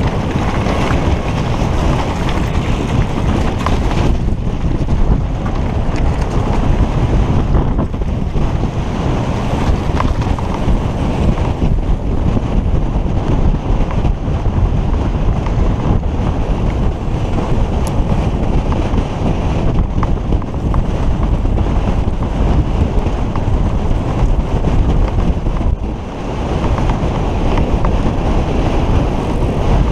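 Heavy wind buffeting the microphone of a helmet-mounted camera on a fast downhill mountain-bike descent. Under it is a steady rumble of the tyres and the bike rattling over rocky and grassy ground.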